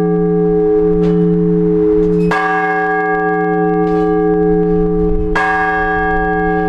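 Orthodox church bells ringing for the all-night vigil: a heavy bell struck in measured strokes about three seconds apart, with lighter strokes in between. Each stroke rings on into the next as a sustained hum.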